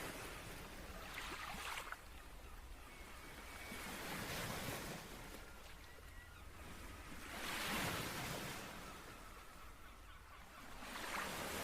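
A faint rushing noise that swells and fades about every three seconds, building again near the end.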